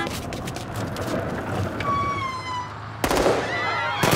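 Dramatized sound effects: a low hum, then a short falling whistle. A sudden loud blast comes about three seconds in and a second near the end, with a tangle of wavering cries after the first.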